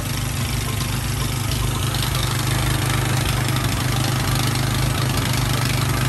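A boat's engine running steadily: an even low hum under a constant hiss.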